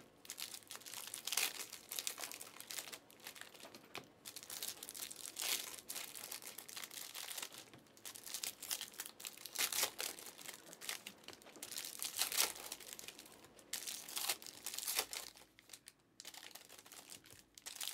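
Foil trading-card packs crinkling and cards rustling as they are handled and laid down on a pile, in short, irregular rustles.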